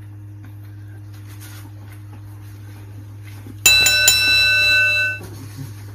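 A loud electronic chime begins about three and a half seconds in: several steady bell-like tones, held for about a second and a half, then cut off.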